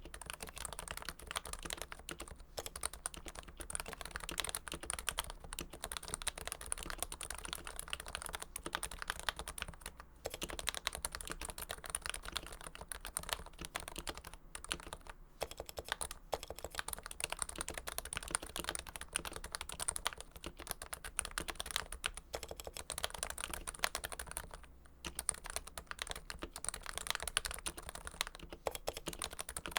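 Continuous fast typing on a custom Realforce tenkeyless keyboard with Topre switches lubed with Krytox 105, its Realforce Hipro plate fitted in a first-generation Realforce TKL case: a dense stream of keystroke clicks, with brief pauses about ten, fifteen and twenty-five seconds in.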